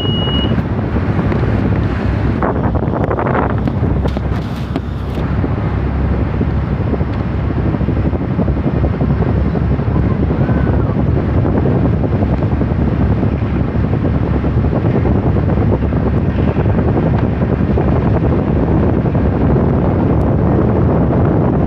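Wind buffeting the microphone on the open deck of a moving boat: a steady, loud, low noise, with the boat's own running noise blended in underneath.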